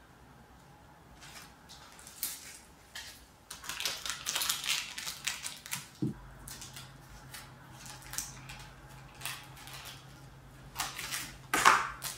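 Hand-crafting noises on cardboard and paper: irregular rustling and crinkling with light clicks, in short bursts. A louder crinkling burst near the end comes as clear packing tape is handled and pressed onto the cardboard.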